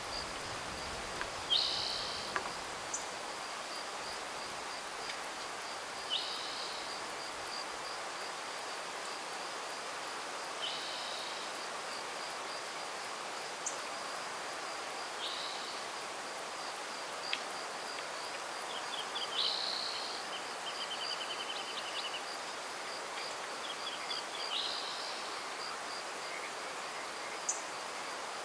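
Countryside ambience. An insect trills steadily and high throughout, a bird gives a short call about every four to five seconds, and a quick run of rapid notes comes from another bird about two-thirds of the way through, all over a faint even hiss.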